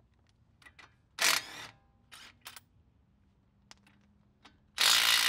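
Cordless impact wrench with a 21 mm socket removing the tie rod end nuts: a short whir of the motor about a second in and a few light clicks, then loud, dense hammering of the impact mechanism starting near the end.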